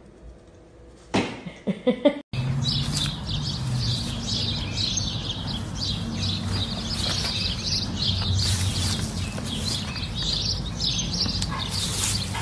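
Small birds chirping busily and without pause over a steady low rumble. Just before this, about a second in, there are a few short, loud sounds.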